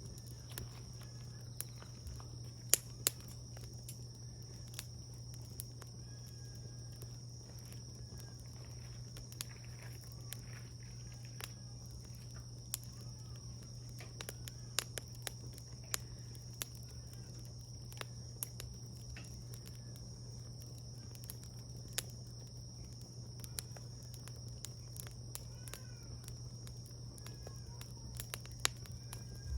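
Wood fire crackling: scattered sharp pops and snaps at irregular intervals over a steady low hum.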